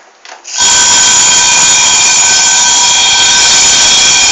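Homemade alarm, a small 9-volt motor rattling against a Pringles can, switched on about half a second in and then running as a loud, steady, high-pitched buzzing drone.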